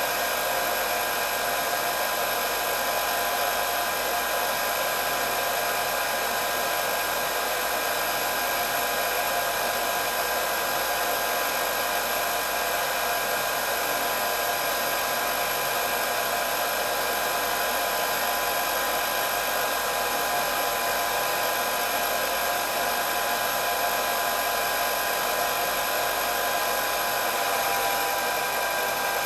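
Hair dryer running steadily, a constant rush of blown air with a high motor whine.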